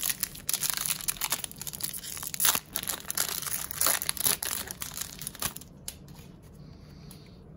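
A hockey trading-card pack's wrapper being crinkled and torn open by hand: dense crackling rustles that stop about five and a half seconds in.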